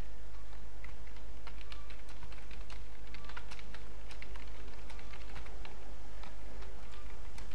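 Computer keyboard typing: a quick, irregular run of key clicks, with many repeated presses, over a steady low hum.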